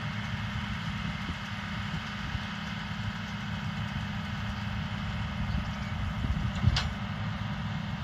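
International Harvester tractor engine running steadily while it pulls a New Holland round baler through windrowed hay, a low hum with a rumbling low end. A single sharp click comes about three-quarters of the way through.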